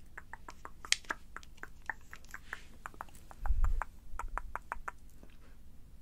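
Close-miked ASMR mouth sounds: a rapid run of wet lip smacks and tongue clicks, several a second. A low thump comes in the middle.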